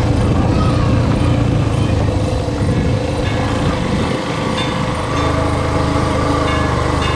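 Small motorcycle engine running steadily while riding along a rough dirt track, with a constant low rumble. The engine eases briefly about four seconds in, then picks up again.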